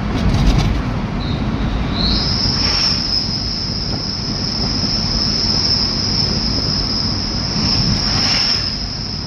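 Steady road and engine rumble of a car driving on a rough road. A thin, steady high-pitched whine starts about a second in, steps up in pitch a second later and then holds.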